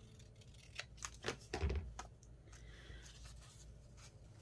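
Paper being handled and shifted on a craft table: a few short scrapes and rustles, with a dull thump about a second and a half in.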